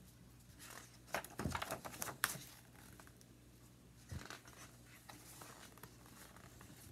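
Pages of a hardcover picture book being handled and turned: faint paper rustles and soft thumps, one cluster about a second in and another about four seconds in.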